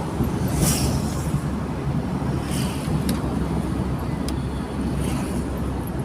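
Steady low rumble of a car driving, heard from inside the cabin, with passing swells of road hiss and a couple of faint ticks about three and four seconds in.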